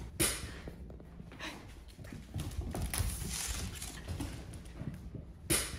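A Jack Russell terrier's claws clicking and skittering on a hardwood floor as it runs, with a sharper knock about a quarter-second in and another near the end.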